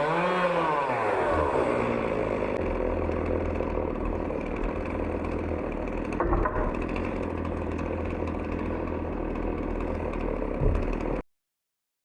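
Chainsaw running at high revs on a homemade chainsaw sawmill. Its pitch drops over the first couple of seconds and then holds steady, with a knock about six seconds in, before the sound cuts off abruptly near the end.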